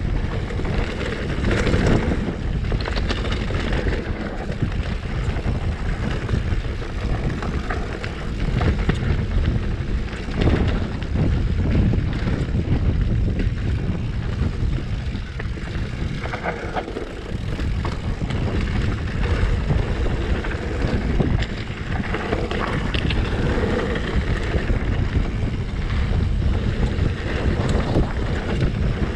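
Mountain bike descending a dirt trail at speed: wind buffeting the handlebar-level microphone over tyre noise on loose dirt and rock, with irregular knocks and rattles from the bike over bumps.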